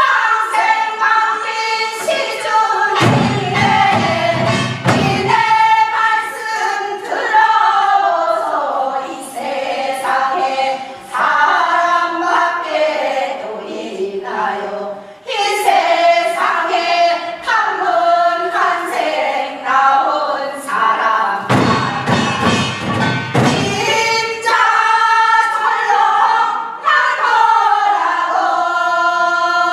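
A group of voices singing a Gyeonggi hwimori japga, a fast, wordy Korean folk song, in continuous quick phrases. Low thudding comes in twice, about three seconds in and again around twenty-two seconds.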